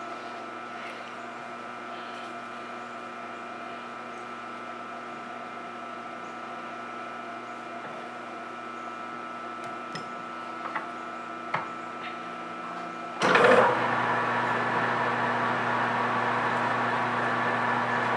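A steady hum with a few light clicks. About 13 seconds in, the PM1660 manual engine lathe's spindle starts with a brief loud surge, then runs steadily at the slow speed set for the big drill.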